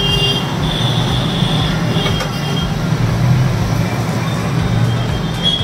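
Road traffic noise: motor vehicle engines running steadily, mostly low-pitched, with no break.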